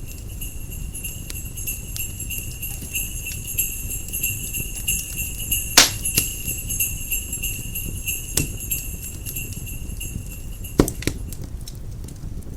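Sleigh bells jingling steadily over a crackling fireplace fire. The bells stop about ten seconds in, and the fire's crackle goes on, with two louder pops near the middle and near the end.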